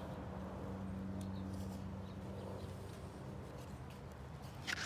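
Quiet background with a faint steady low hum. Near the end comes a brief crackle of a paper booklet being handled as the user manual is opened.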